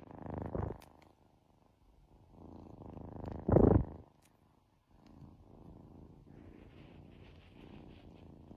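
Kitten purring close to the microphone, in swelling and fading waves with short pauses between them, with one louder rush about three and a half seconds in.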